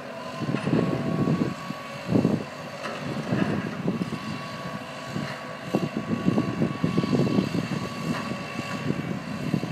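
Camera drone hovering, its propellers giving a steady whine, with irregular low rumbling surges mixed in.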